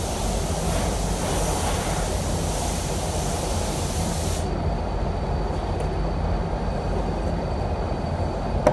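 Compressed air hissing steadily from an automotive paint spray gun, cutting off sharply about halfway through, over the steady low rumble of the paint booth's ventilation fans. Two light knocks come at the very end.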